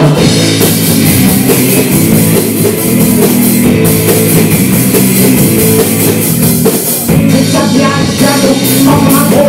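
A live rock band playing loud: drum kit, electric guitars, bass and keyboard together over a steady beat.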